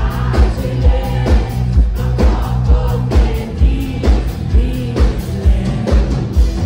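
Live pop-rock band playing, with a woman singing lead over a steady kick-drum beat a little over two beats a second and electric guitar.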